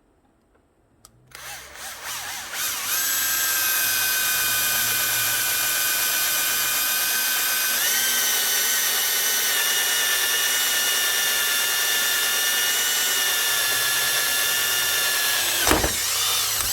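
Electric hand drill boring a hole through a small steel patch plate: a steady motor whine with several tones that builds up over the first couple of seconds, steps up in pitch about halfway through, dips briefly and then cuts off at the end.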